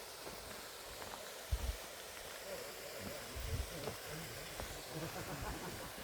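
Steady rush of water falling over the waterfall's rocks, with a couple of low thumps of wind on the microphone, about a second and a half in and again around three and a half seconds in.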